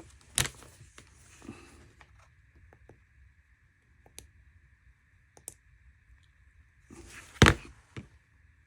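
Wurkkos TS10 flashlight's tail switch being clicked, a few sharp clicks with pauses between, two of them louder. A faint steady high tone sets in about two seconds in.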